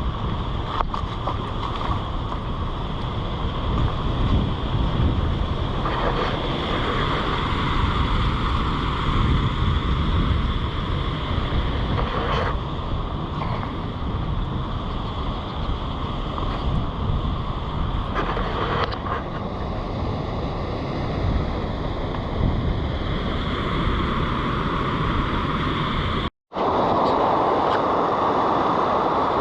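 Steady rush of water pouring over Dolan Falls, a waterfall on the Devils River, with wind buffeting the microphone. The sound cuts out for a moment near the end and comes back a little louder.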